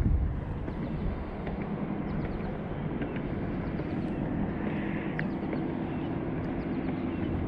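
Wind rumbling on the microphone, with a distant engine humming steadily underneath from about a second in.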